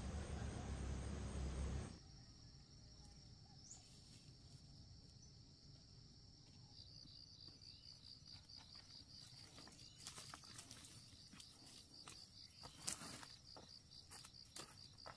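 Faint insect calling in a thin, high steady tone that turns into a rapid pulsing trill about halfway through, with scattered light clicks and knocks near the end. For the first two seconds a louder low rumble covers it, then cuts off suddenly.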